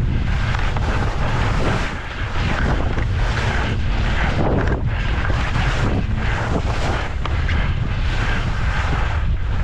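Wind buffeting the microphone while skiing downhill, with skis hissing and scraping over the snow in repeated turns.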